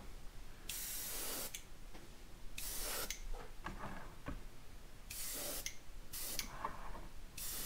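Iwata HP-C dual-action airbrush spraying in about five short bursts of hissing air and paint, laying a very light coat.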